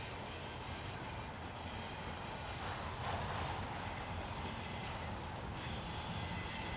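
Norfolk Southern freight cars rolling past with steady wheel noise over the rails: a continuous low rumble, with faint high-pitched wheel squeal running throughout.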